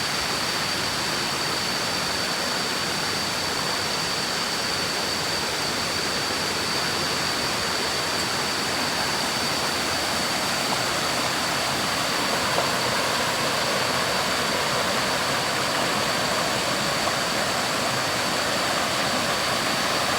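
Waterfall: steady rushing water, with a thin, steady high-pitched tone running through it.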